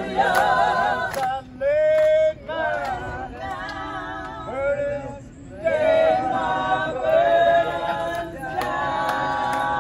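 Gospel choir of men's and women's voices singing a cappella, settling into a long held chord near the end.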